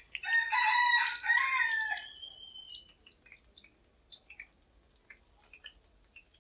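A rooster crowing once, a long call with a drawn-out tail that fades about three seconds in, followed by faint scattered ticks.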